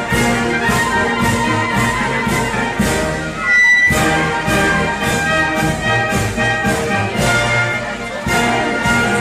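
Brass band music with a steady beat, played for a religious procession. A short, bright high tone stands out about three and a half seconds in.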